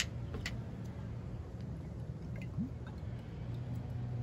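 Olive oil being poured from a bottle over raw chicken breasts on a plate: a few faint light clicks near the start over a steady low background hum.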